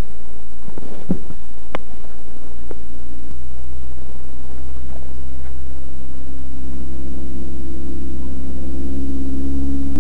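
Suzuki GSX-R1100's inline-four engine idling, a steady pitched hum that comes in about three seconds in and grows stronger, over a constant low rumble. A few sharp clicks and knocks come in the first three seconds.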